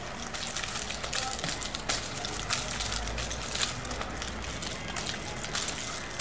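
Two nunchaku being swung and twirled fast, making a quick, irregular string of whooshes and clicks.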